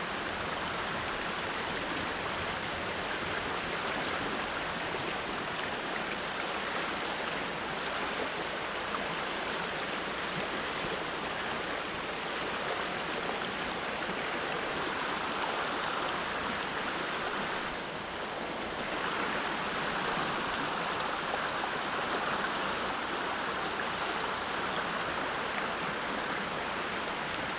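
Fast-flowing river rushing steadily past the bank.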